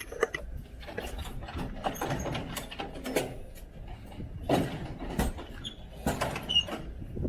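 Irregular knocks, clicks and scraping, as of something heavy being handled and shifted about, with a couple of brief faint squeaks.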